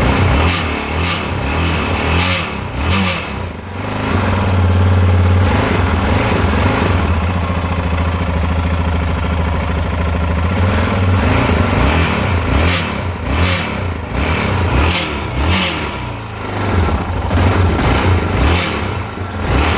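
2010 Yamaha XT660Z Ténéré's single-cylinder engine running, with its speed rising and falling a few times, and a grinding rattle that seems to come from the top end of the engine.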